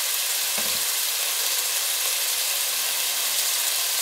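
Sliced beef frying in oil in a nonstick pot, coated with oyster sauce and hot chili sauce: a steady sizzle, with one brief low bump just over half a second in.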